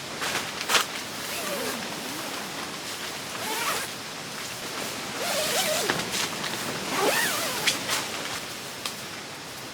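Zipper and nylon fabric rustling and scraping in swells, with several sharp clicks.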